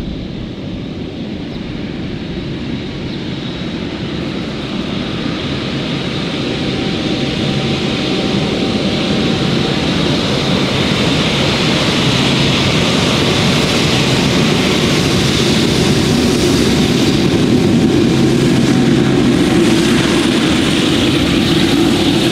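Airliner's jet engines at takeoff power, a steady roar with a high fan whine, growing louder over the first ten seconds or so and then holding loud.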